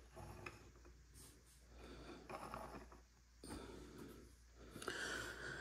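Fingers working at a stack of trading cards, card stock rubbing and sliding against card with a faint papery scraping in several short stretches, loudest near the end.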